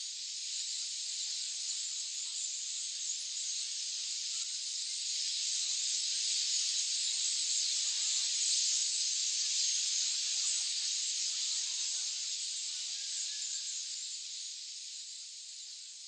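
A vast flock of starlings calling all at once: a dense, high hiss of massed calls with faint chirps in it, swelling toward the middle and fading near the end.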